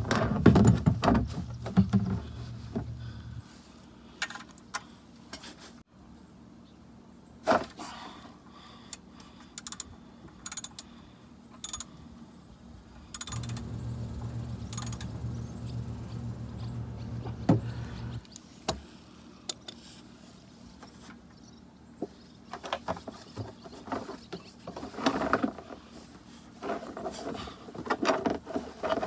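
Ratchet and 13 mm socket working the oil drain bolt loose: scattered clicks and metallic taps, thickest in the middle. A low hum comes and goes twice, for a few seconds each time.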